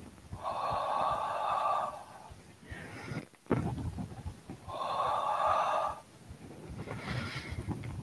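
A woman's breathy, whispered "hu" sound, exhaled twice and each about a second long, with a shorter in-breath between them. It is the qigong healing sound for the spleen.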